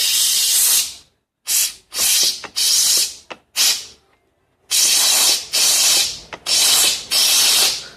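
Compressed-air blowgun blowing into a tractor transmission clutch drum to air-check the clutch piston: about ten short hissing blasts with brief gaps between them. The clutch is working.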